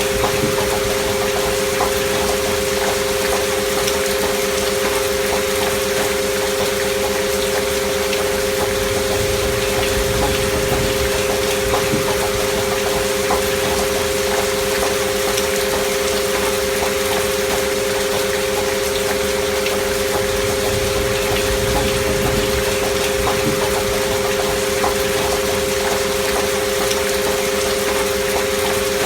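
Two steady sine tones of a 528 Hz–style 'healing frequency' binaural-beat track, held unchanging over a constant hiss of gentle recorded rain.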